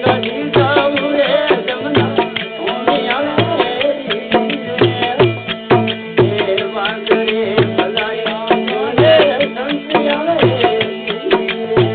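Devotional bhajan music: a steady held drone and a wavering melody over a hand-drum beat, with low strokes a little under a second apart and sharp clicking percussion between them.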